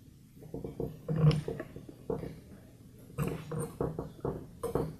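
Handling noise as a compression tester's brass fitting is screwed by hand into the spark plug hole of a two-stroke hedge trimmer: irregular light scraping and rubbing of hands, hose and rubber-booted gauge against the tool, in two spells, the second longer.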